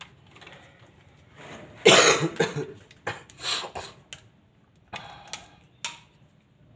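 A person coughing, loudest about two seconds in, with several shorter coughs or throat-clearing sounds after.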